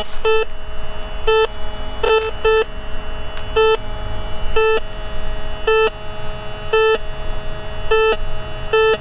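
Whites MX Sport metal detector giving a short beep on each pass of the coil, about once a second and sometimes twice in quick succession, over a steady faint tone. The signal repeats in the nickel range, read as nickel or foil.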